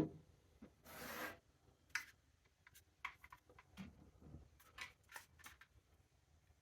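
Handling noise on a table: a thump, a short rustle about a second in, then a scatter of small sharp clicks and taps, as tools and parts are moved about.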